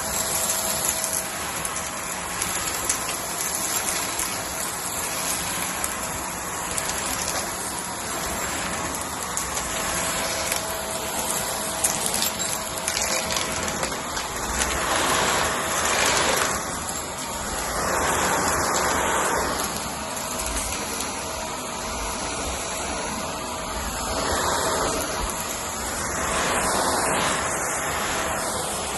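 Vacuum cleaner running over a rug: a steady rushing whir with a faint constant tone in it. It swells louder several times, a few times around the middle and once more near the end.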